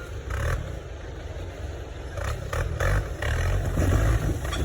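A Suzuki Jimny 4x4's engine revs unevenly in surges, with scraping and clattering knocks from the vehicle as it works over rough ground.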